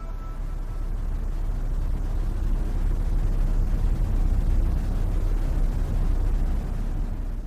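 A steady low rumbling noise, with no music or voice, running throughout.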